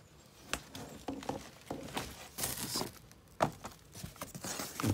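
A cardboard shipping box being opened by hand, its flaps pulled back and rubbing, with the plastic wrapping around the potted trees inside rustling. Irregular scrapes and rustles, with a sharp knock about three and a half seconds in.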